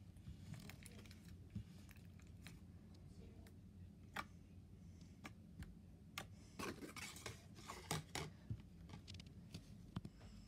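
Slime being squeezed and poked with fingers for ASMR: faint sticky clicks and pops, coming thickest about two-thirds of the way through.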